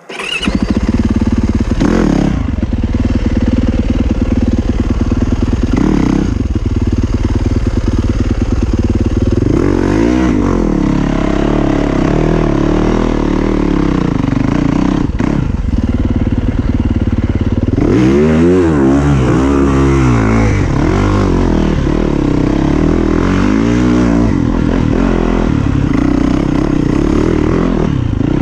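2020 Yamaha YZ450FX's 450cc single-cylinder four-stroke engine under a rider off-road, its revs rising and falling again and again as the bike accelerates and shifts.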